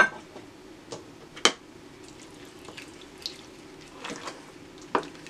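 Creamy mushroom sauce simmering in a frying pan: a steady low bubbling with scattered small pops and clicks. A wooden spoon stirs through it near the end.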